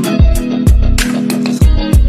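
Background music with a steady beat of deep, pitch-dropping bass kicks and sharp claps over sustained notes.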